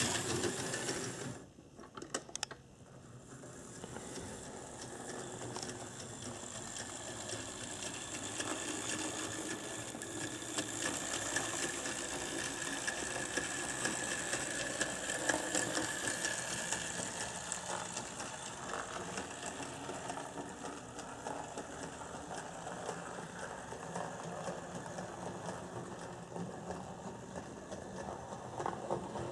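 Brass HO-scale model of a JNR C62 4-6-4 steam locomotive running on track: its electric motor and gear drive whir steadily, with a rapid fine clicking from the mechanism and wheels on the rails. The sound drops away briefly about two seconds in, then comes back and holds steady.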